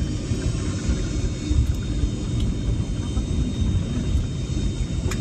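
Airliner cabin noise: a steady low rumble of the engines and airflow, with a faint steady high whine above it.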